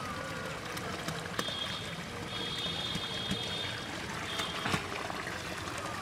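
Muddy rainwater running steadily down a small ditch channel and pouring through a plastic basket held in the flow. A high, thin steady tone comes and goes in the middle.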